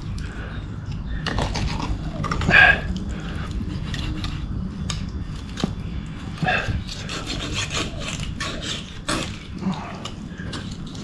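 Knife sawing and rasping through a large rainbow trout's flesh and bones, with scattered sharp clicks as the blade catches.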